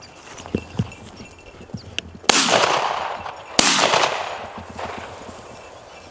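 Two shotgun blasts a little over a second apart, fired at a flushing pheasant, each trailing off in a long fading echo.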